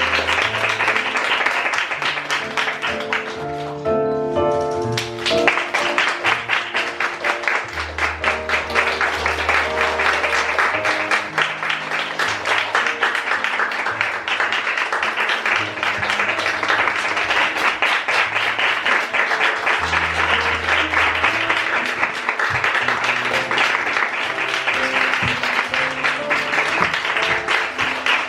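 Audience applauding over loud curtain-call music with a prominent bass line.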